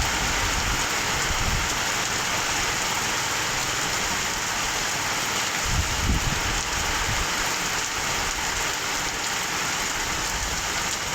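Heavy monsoon rain pouring down in a steady, dense hiss, with a brief low rumble about six seconds in.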